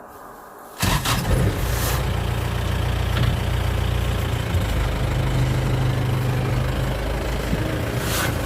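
Vehicle engine idling with a steady low hum, cutting in abruptly about a second in after a quieter stretch.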